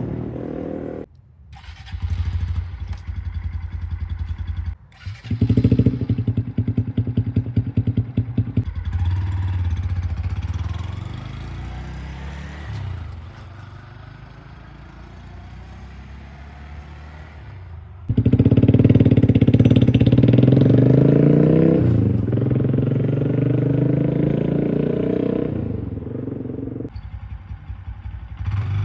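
Honda Grom's 125cc single-cylinder engine running and being revved through its exhaust, in a string of short edited clips that cut abruptly from one to the next, comparing the factory exhaust with a loud aftermarket iStunt full-system exhaust.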